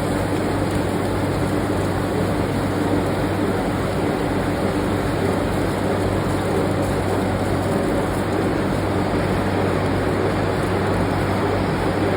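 Steady factory machinery drone: an even rushing noise with a low hum underneath, holding level throughout, with no separate hammer strikes.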